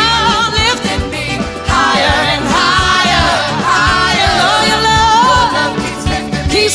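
Live soul music: a female lead singer holding long, wavering sung notes over electric guitar and a steady drum beat.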